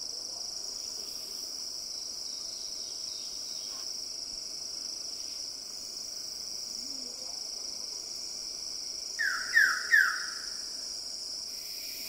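Steady high insect drone from the rainforest, with three loud, short, falling calls in quick succession about nine seconds in from a male Wilson's bird of paradise.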